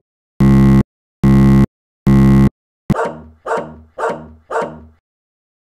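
Fictional Emergency Alert System alarm: three loud, harsh buzzing tone bursts, each about half a second long with equal gaps. About three seconds in, after a click, come four barks in a steady rhythm about half a second apart.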